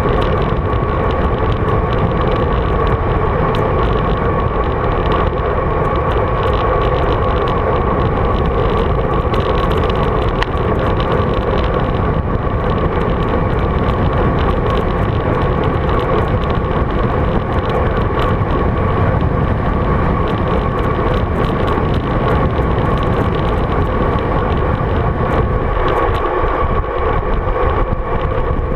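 Steady rush of wind on a GoPro Hero 3's microphone as a road bike rolls at speed downhill. A constant hum runs underneath.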